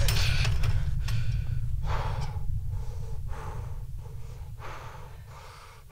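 Deep earthquake rumble, a sound effect, fading away over several seconds, with a man gasping and breathing hard over it.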